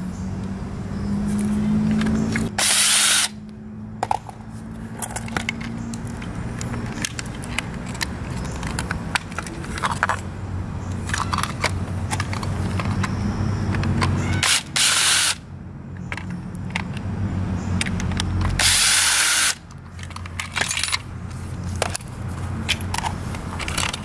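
Power screwdriver running in short bursts as screws are backed out of a plastic lock housing, with small clicks of parts being handled between runs. Three of the runs, near 3, 15 and 19 seconds, are much louder than the rest.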